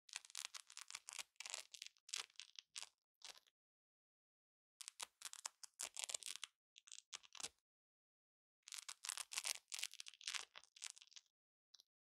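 Velcro hook-and-loop fastener crackling in three spells of about three seconds each, made of many quick rasping strokes, with dead silence between them.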